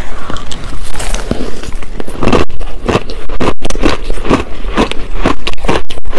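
Shaved ice with passion fruit pulp crunching as it is bitten and chewed, a quick run of loud crunches several times a second, together with a metal spoon scraping and scooping through the ice in the bowl.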